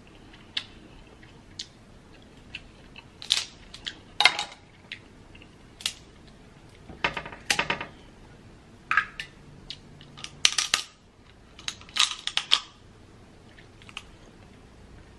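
Snow crab leg shells cracking and snapping as they are broken apart by hand: irregular sharp cracks, some single and some in quick clusters.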